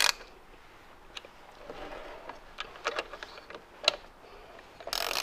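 Hand tools on the bolts of a mass airflow sensor adapter plate as they are tightened: a few light metal ticks, then a short burst of ratcheting near the end.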